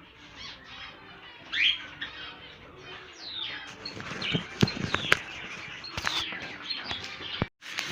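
Many small cage birds chirping repeatedly in quick, twittering calls, with a few sharp knocks partway through from work on the cages.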